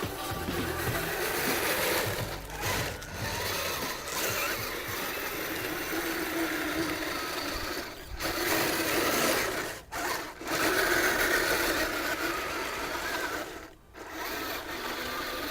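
Electric drive motor and gearbox of a radio-controlled Kyosho Blizzard DX snow cat whirring as it drives, cutting out briefly a few times.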